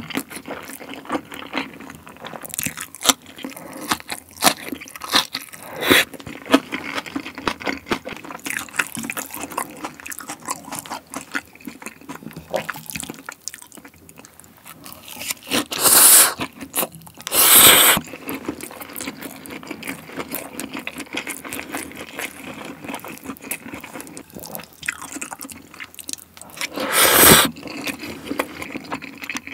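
Close-miked eating sounds: wet chewing and lip smacks over black-bean-sauce noodles and crispy chicken, with many small clicks throughout. Three loud noodle slurps stand out, two close together a little past halfway and one near the end.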